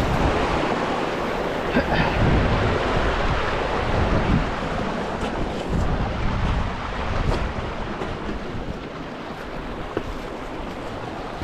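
Small waterfall splashing into a creek, a steady rushing of water, with wind buffeting the microphone in low rumbles. It eases off slightly in the last few seconds.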